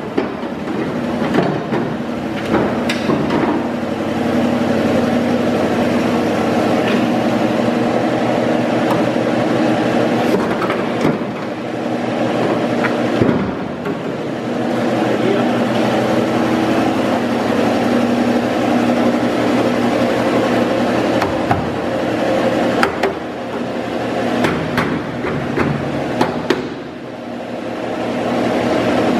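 A loud, steady mechanical drone, with scattered metallic clanks and knocks as an old truck's steel cab door is handled and carried away.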